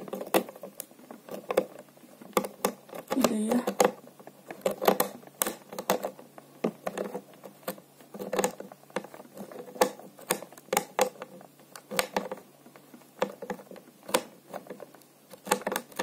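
Screwdriver tightening a metal hose clamp around a corrugated plastic hose: irregular clicks as the clamp screw is turned, several a second with short pauses.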